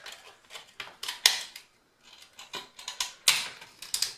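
Irregular sharp clicks and short crackling scrapes as a small circuit board in a laptop's screen lid is prised away from its adhesive and tape. The loudest clicks come about a second in and just past three seconds.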